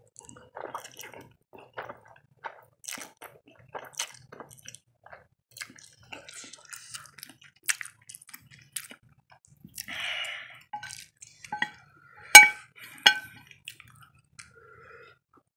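Close-up mouth sounds of a person slurping and chewing instant noodles, many short wet smacks. About 12 s in, two sharp ringing clinks of a metal spoon against the plate, the loudest sounds.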